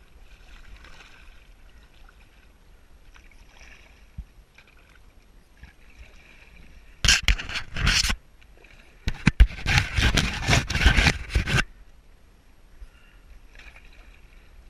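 Paddle strokes splashing water close to the bow of an inflatable kayak. Faint water trickling for the first seven seconds, then two loud bouts of splashing, one about a second long and one about two and a half seconds long.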